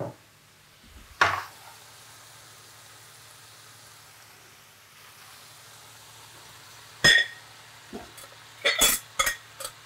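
Chicken frying in a pan, a steady faint sizzle, while a utensil works the pan: a scrape about a second in, then a ringing metallic clink and a quick run of clinks and taps near the end.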